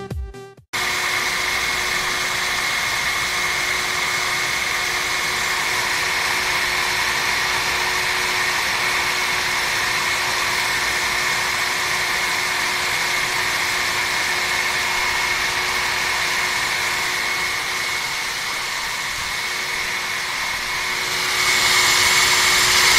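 Small electric motors of a working scale-model grain dryer running steadily: a steady whine over a hiss, cutting in just under a second in and getting somewhat louder near the end.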